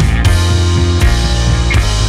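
Rock background music with a steady beat.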